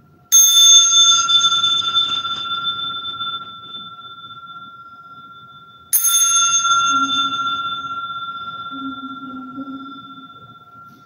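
A small metal bell rings twice, about five and a half seconds apart, each strike sudden and then ringing out slowly.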